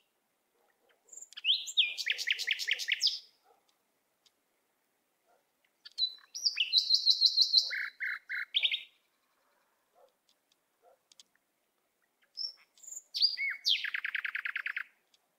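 A songbird singing three phrases, each two to three seconds of quick high trills and short whistled notes.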